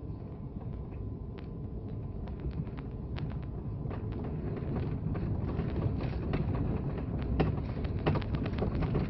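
Snowplow truck running inside the cab, a steady low drone that slowly grows louder, with scattered sharp clicks and knocks that come more often in the second half.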